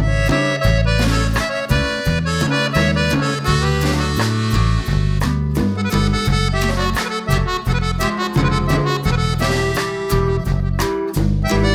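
Background music: a melody over a strong bass line with a steady beat.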